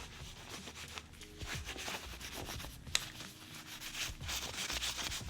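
Soft rubbing and handling noises on an airsoft pistol and its magazine, with a single sharp click about three seconds in.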